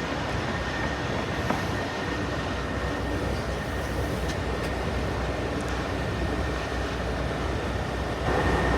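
Heavy diesel machinery running steadily, a low rumble with a thin steady whine, growing louder about eight seconds in.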